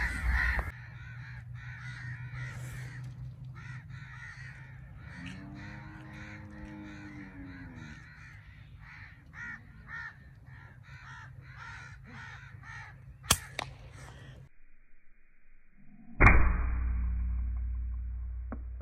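Birds calling over and over with short caw-like calls, then near the end a sharp report from an Artemis P15 PCP air rifle, the loudest sound, trailing off into a low rumble. A fainter sharp crack comes a few seconds before it.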